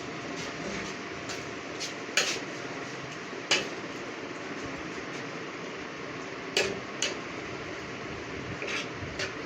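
A metal spoon or spatula clinking against a pan a handful of times, irregularly, while cream is stirred into the chicken masala, over a steady low hiss.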